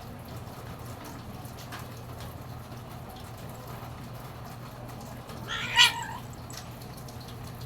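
A domestic cat meowing once, a short call about five and a half seconds in, over a steady low hum.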